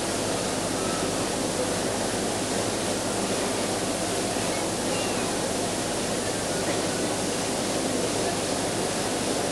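Steady hiss with the low murmur of a large indoor crowd, an even background with no sudden sounds.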